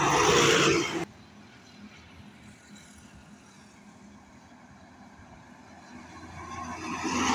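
Light truck passing close, its engine and tyre noise loud, then cut off sharply about a second in. After a low steady hum of the road, a heavy lorry approaches near the end, its engine and tyre noise growing louder.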